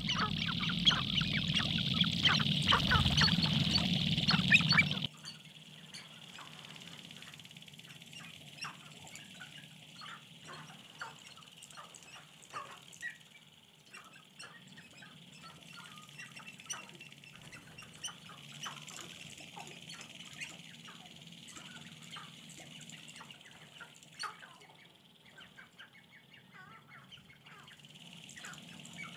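A lek of male sharp-tailed grouse calling: many short clucks, cackles and clicks overlapping. The calling is loud and dense for about the first five seconds, then drops suddenly to a quieter, scattered chorus.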